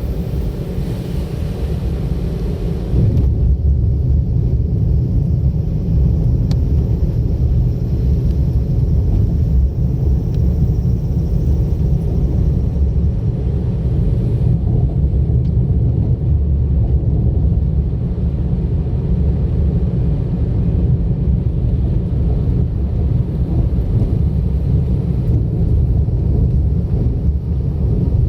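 A car driving on a road, with a steady low rumble of tyres and engine that gets louder about three seconds in.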